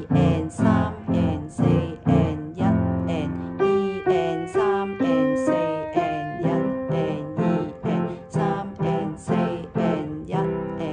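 Piano playing a twelve-bar blues tune with both hands: softer left-hand chords struck about twice a second under a right-hand melody of short off-beat notes and some held long notes.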